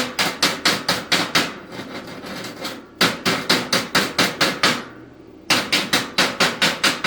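Chipping hammer striking slag off a 7018 stick weld on steel: rapid sharp metal-on-metal strikes, about five a second, in three runs with short pauses between.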